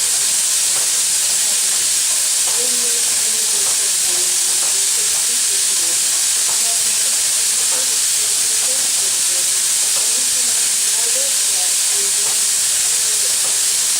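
Steam locomotive L-4600 hissing steadily as it vents steam, a constant loud hiss that does not change, with faint voices underneath.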